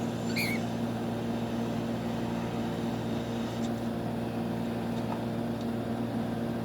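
A steady low mechanical hum, with one short wavering chirp from a cockatiel about half a second in and a few faint ticks.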